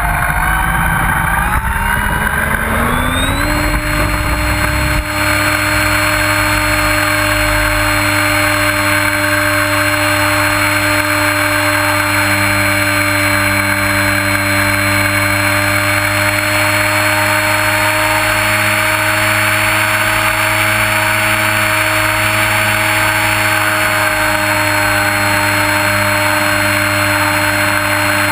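RC model T-28 Trojan airplane's motor, heard from the camera on board, climbs in pitch over the first few seconds as it throttles up for the takeoff run, then runs steadily at high throttle in flight with a thin high whine.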